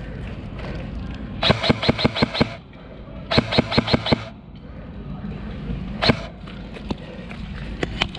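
Airsoft rifle firing two short full-auto bursts about a second long, each a rapid run of sharp clicks, followed by a single shot about six seconds in.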